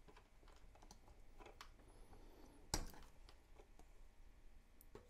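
Faint handling clicks of a 9-volt battery and its snap connector being pulled off the battery's terminals, with one sharper click a little under three seconds in.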